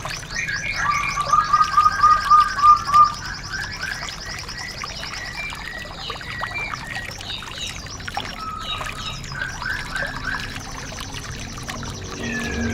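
Several songbirds singing fast high trills and chirps, with a quick run of louder repeated lower notes between about one and three seconds in and a drawn-out whistle near the end, over a faint steady trickle-like hiss.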